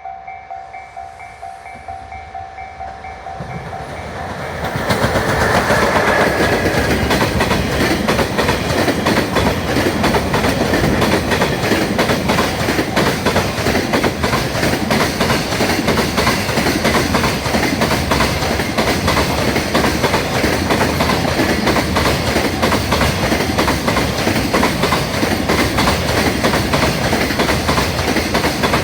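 Japanese level crossing warning bell ringing with a repeated two-tone clang. About five seconds in, a freight train arrives and passes close by, with a steady rapid clatter of wheels over rail joints.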